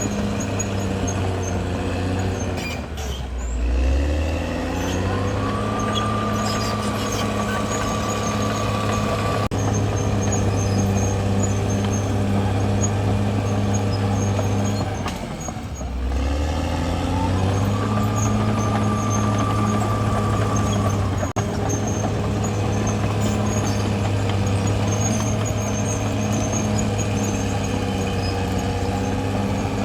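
Caterpillar D6R XL bulldozer's diesel engine running hard. Twice its revs sag sharply under load and then climb back, and after each recovery a high whine comes in for a few seconds.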